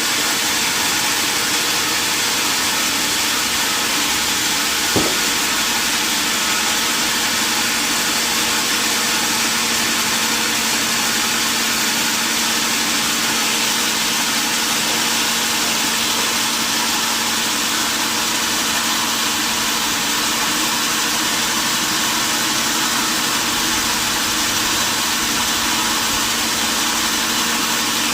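Sawmill machinery running steadily with an even rushing noise. A single sharp click comes about five seconds in, after which a steady low hum joins.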